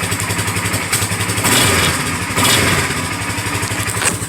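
Polaris Sportsman 450 ATV's single-cylinder engine idling just after being started, getting briefly louder about one and a half seconds in. No knock or rattle from the gas tank area is heard, a cushion pad having just been fitted there to cure it.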